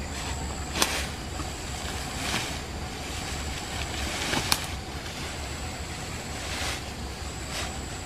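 Leaves and branches rustling and swishing as a person pushes into a dense leafy bush, with two sharp twig snaps, about a second in and again halfway through. Under it runs a steady low rumble and a thin high insect whine.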